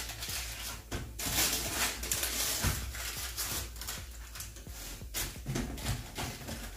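Parchment paper rustling and crinkling in irregular bursts as hands press shortcrust pastry into a quiche tin, loudest between about one and three seconds in.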